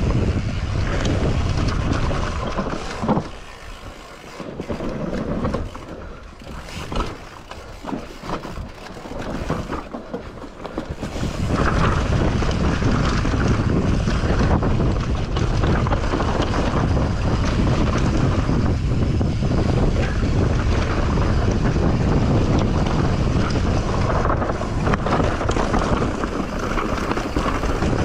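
Mountain bike descending an enduro trail: wind rushing over the microphone along with the rattle of the bike over rough ground. About four seconds in the rush drops quieter for several seconds, broken by a few sharp knocks, then comes back loud and steady around twelve seconds in.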